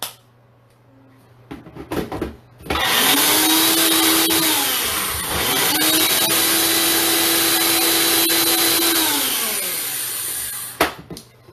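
Single-serve personal blender running in two goes: the motor spins up, dips briefly about a third of the way in, then runs steadily for several seconds before winding down. A few clicks of the cup going onto the base come just before, and a sharp click comes near the end.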